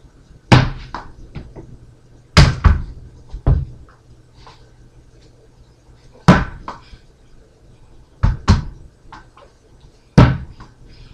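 A small ball being thrown around a room and striking hard surfaces: loud, sharp knocks every two to four seconds, some coming in quick pairs.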